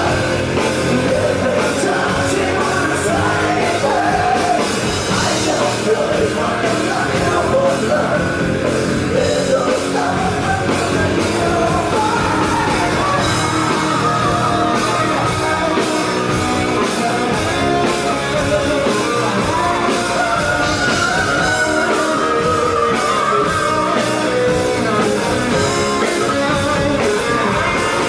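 Rock band playing live, loud and steady, with a singer's voice over the band.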